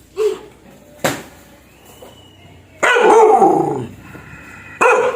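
A dog barking loudly and fiercely: a short bark at the start, a sharp yap about a second in, a long drawn-out bark that falls in pitch near the middle, the loudest, and another short bark near the end.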